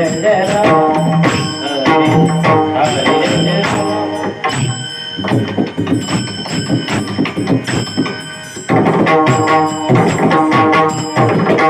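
Bhajan music: pakhawaj drumming with metallic ringing percussion over sustained melodic tones. It is somewhat quieter through the middle, then fuller again for the last few seconds.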